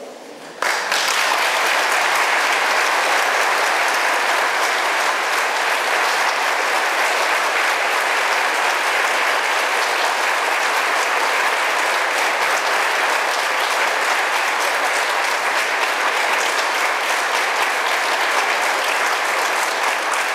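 Congregation applauding: many people clapping together, starting abruptly about a second in and going on steadily without a break.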